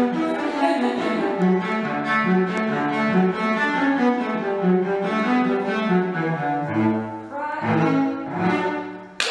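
Solo cello bowing a quick traditional tune, a brisk run of short notes that gives way to a few longer, lower notes near the end.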